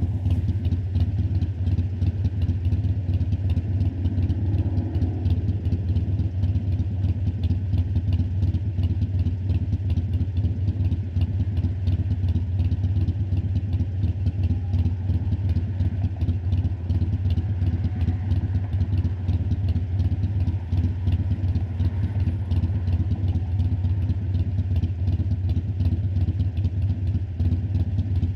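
A 2018 Harley-Davidson Sportster Iron 1200's air-cooled 1200 cc V-twin running steadily through Vance & Hines Twin Slash slip-on mufflers. It is a low, even exhaust note with no change in revs.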